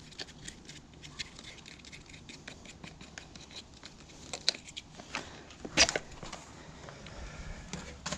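Scattered light clicks and taps of plastic and wire parts being handled as an electric fan is taken apart by hand, with two louder knocks past the middle.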